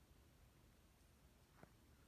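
Near silence: room tone, with one faint short tap about one and a half seconds in.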